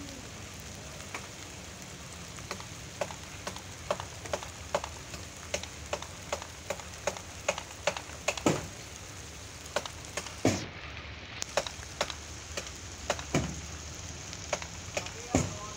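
Light rain: a steady hiss with many irregular sharp ticks of drops, a few louder ticks in the second half.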